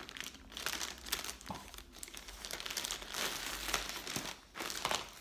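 Plastic mailer bag crinkling and rustling as it is cut open with scissors and pulled apart by hand, irregular and uneven, with a brief pause near the end.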